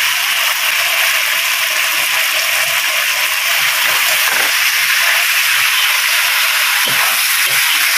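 Chicken, chillies and onion sizzling in a hot wok as they are stir-fried, a steady loud hiss.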